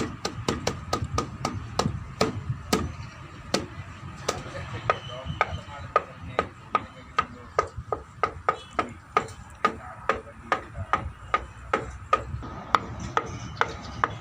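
Hand slapping bamboo in a fast, uneven rhythm, two to four sharp knocks a second, over a faint steady ringing tone.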